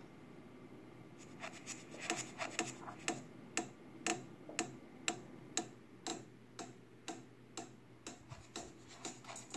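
Electronic track playing through computer speakers in a sparse ticking passage: sharp clock-like clicks about two a second, starting about a second and a half in.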